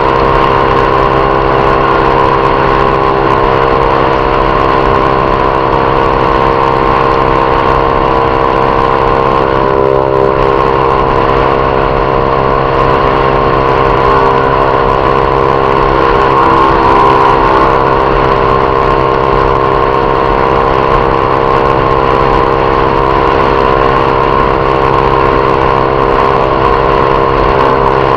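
Honda CG Titan 150 single-cylinder engine running steadily through a Viúva Negra aftermarket exhaust, its pitch holding nearly constant with only slight wavering.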